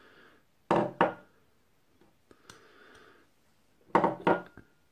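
Small glass bowls knocking on a wooden tabletop as they are handled and set down: two knocks about a second in, then a cluster near the end, the last followed by a brief ring.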